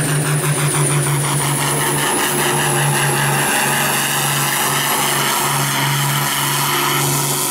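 International Harvester pro farm pulling tractor's turbocharged diesel running flat out under full load as it drags the weight-transfer sled. A high turbo whistle climbs slightly in pitch over the first couple of seconds and then holds.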